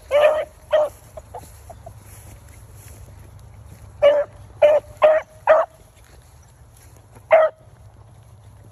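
Beagle hounds barking short, pitched chop barks while trailing a rabbit: a pair in the first second, a quick run of four about four seconds in, and a single bark near the end.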